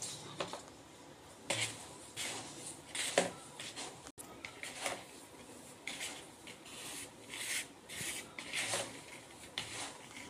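A bare hand rubbing and tossing damp roasted semolina in a plastic bowl, making short, irregular scratchy rustles about once a second. This is salted water being worked into the rava to make it crumbly for puttu.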